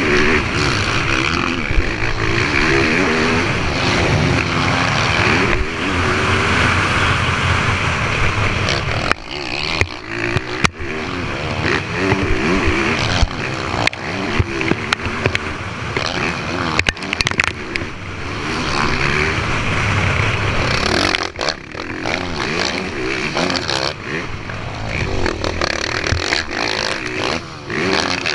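Motocross bike engine heard from the rider's own helmet, revving up and down with the throttle through corners and straights. The engine note dips briefly twice, about a third of the way in and again about three quarters through.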